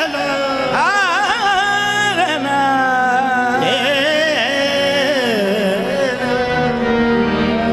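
Qawwali music: a male lead singer holding and bending long sung notes over harmonium accompaniment.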